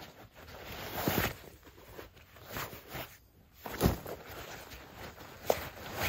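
Nylon fabric rustling and scuffing as hands pack and rummage inside a medium ALICE backpack, with a longer rustle about a second in, a soft thump near the middle and a brief click near the end.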